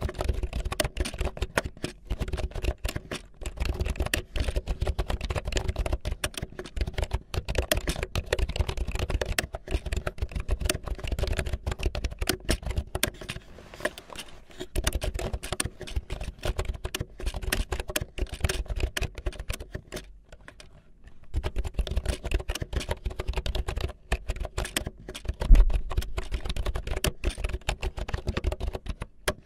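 Rapid, continuous clicking and tapping, with a brief pause about twenty seconds in and one louder low thump a few seconds before the end, over a faint steady hum.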